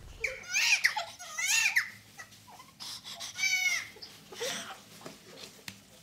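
A newborn baby crying in a run of short, high-pitched wails, loudest in the first two seconds, with a man laughing.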